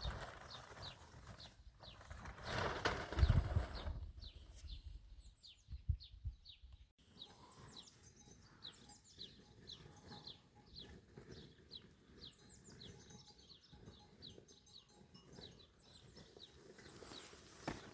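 Small birds chirping repeatedly, each call a short high note falling in pitch. A loud rustling noise comes about three seconds in.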